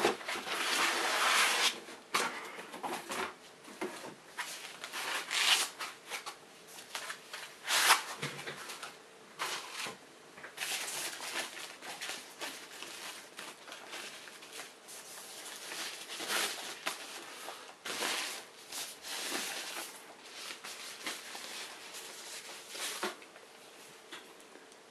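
Irregular rustling, scraping and crinkling of packaging: cardboard box and foam end caps being handled as a netbook is slid out, then its thin white wrapping sleeve crinkling as it is peeled off. Loudest in the first couple of seconds, with a sharp rustle about eight seconds in.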